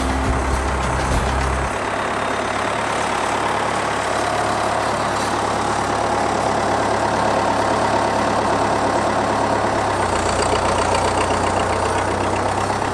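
A vehicle engine running steadily, its low hum shifting in pitch about two seconds in and again around ten seconds.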